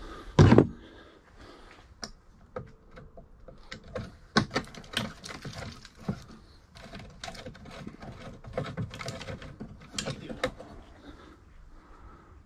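A loud thump about half a second in, then irregular metallic clicks and knocks of hands and tools working on the rusted fittings of a 1991 Lotus Esprit headlight pod.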